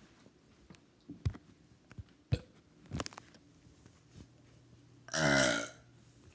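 A man burps once, a pitched burp about two-thirds of a second long near the end. Before it come a few faint clicks.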